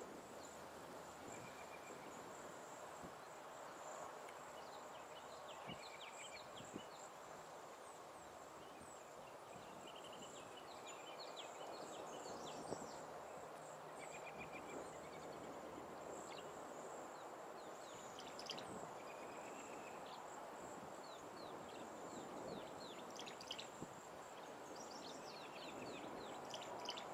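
Small birds calling: scattered quick chirps and twitters throughout, with a short buzzy trill repeated every few seconds, over a steady hiss of outdoor background noise and a thin, steady high tone.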